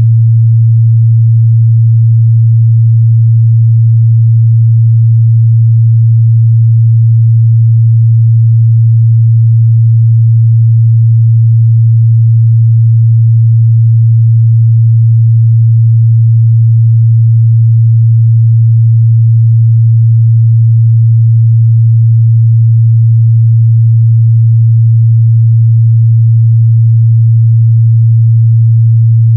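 A steady 114 Hz sine-wave test tone, one unbroken low hum at constant loudness.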